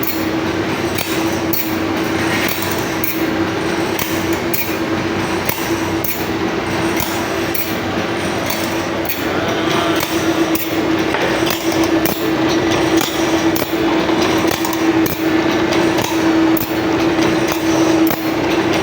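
Band saw blade sharpening grinder running with a steady motor hum and an even, rhythmic click about one and a half times a second as it grinds the blade tooth by tooth, taking light passes.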